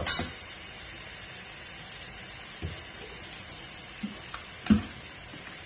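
Kuzhambu sizzling steadily in a kadai as ground paste is added. There is a sharp clatter right at the start, and a few dull knocks follow, the loudest about a second before the end.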